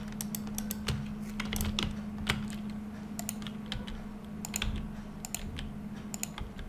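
Computer keyboard typing: irregular, sharp keystrokes, several a second, over a steady low hum.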